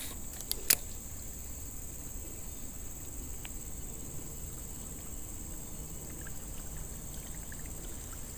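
Steady high-pitched insect drone, with two sharp clicks less than a second in.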